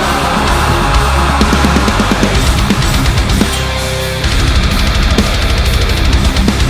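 Heavy metal music with distorted electric guitar and a driving drum kit.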